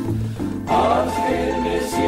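Background music with held bass notes and sustained chords; the upper notes break off briefly about half a second in and then come back.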